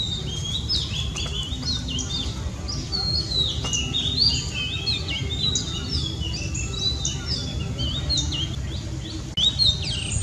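Many small birds chirping, with short overlapping calls running on without a break and a few louder calls near the end, over a steady low rumble.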